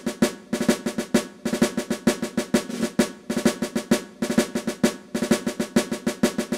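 Intro music of fast snare-style drumming, played in repeated phrases of quick strokes.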